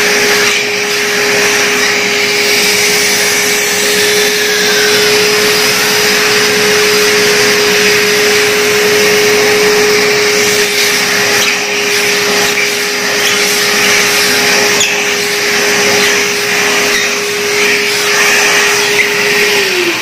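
Euroclean WDX2 wet-and-dry vacuum cleaner running with a steady motor tone while its wiper brush is pushed back and forth over a wet floor, sucking up water. Near the end the motor is switched off and its pitch falls as it winds down.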